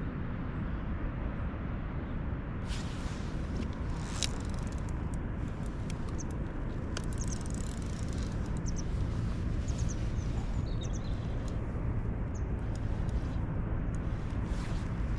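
Steady low background rush with small birds chirping a few short calls midway through, a couple of light clicks early on, and a faint low hum coming in about halfway.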